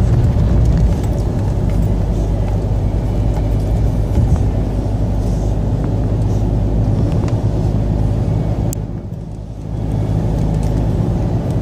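Car's engine and tyre noise heard from inside the cabin while driving at steady speed on a wet road, a low rumble that dips briefly about nine seconds in.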